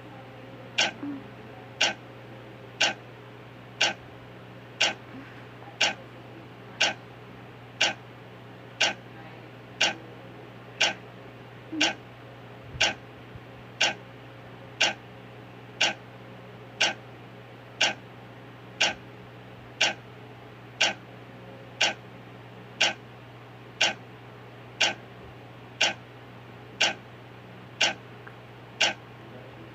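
Clock ticking steadily at one tick a second, marking off a countdown.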